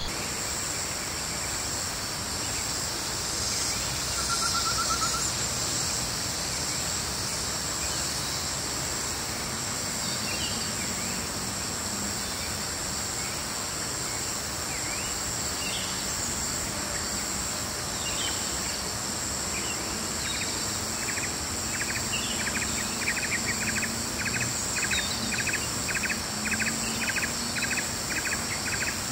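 Forest ambience of insects trilling steadily at several high pitches, with scattered short bird chirps. About two-thirds of the way through, a regular pulsing call joins, about two pulses a second.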